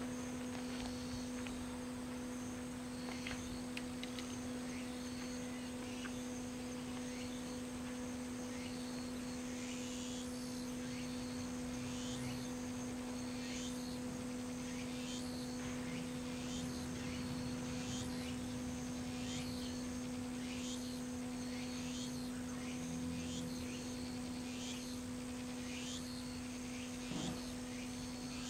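Outdoor insect chorus: steady high-pitched trilling, joined about ten seconds in by a short falling call repeated about once a second. Under it runs a steady low hum.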